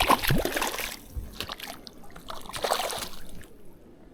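Water splashing and sloshing in irregular bursts, loudest in the first second.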